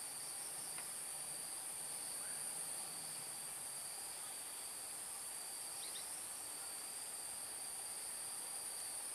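Steady, high-pitched chorus of insects in the swamp, a continuous shrill drone with a second, lower band that wavers slightly.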